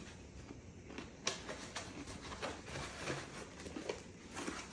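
Box packaging rustling and crinkling, with irregular small taps and clicks as the box is opened.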